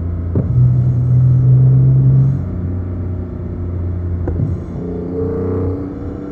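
BMW E46 M3's straight-six engine through a Supersprint exhaust, running at a steady pull on the move. It swells louder for about two seconds near the start, then eases off, with a short thump about half a second in and another just past four seconds.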